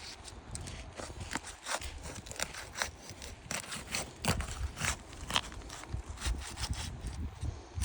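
Fiberglass asphalt roof shingle being pried up and its sealant strip broken loose: irregular crackling and scraping clicks.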